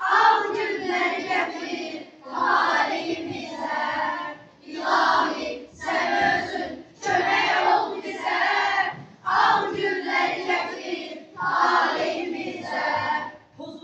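A chorus of children's voices in unison, voicing about seven short phrases with brief gaps between them.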